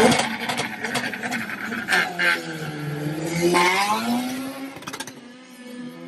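Two drag-racing cars launching off the start line, their engines revving hard and rising in pitch as they accelerate, then fading as they pull away down the strip.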